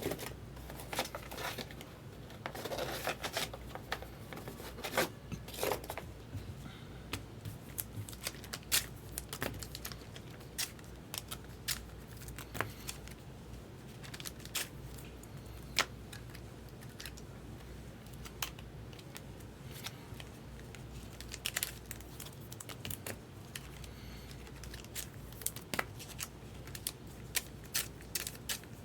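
Trading cards and their foil pack wrappers being handled: scattered sharp clicks and snaps of cards, with a stretch of crinkling and tearing a few seconds in, over a low steady hum.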